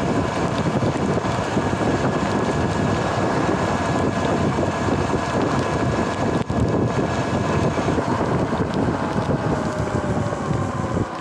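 Wind buffeting the microphone and tyre hiss on wet pavement from an electric dirt bike riding at steady speed, with the motor's thin, steady whine underneath.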